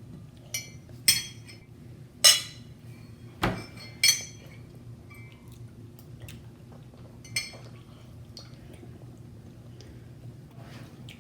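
Cutlery and dishes clinking at the table: about six sharp, ringing clinks in the first seven or eight seconds, with one duller knock on the table among them, over a faint steady hum.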